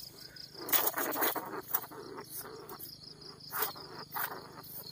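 Insects chirping steadily in the field, with several short bursts of rustling as the wire-mesh cage trap holding a caught rat is moved through the grass.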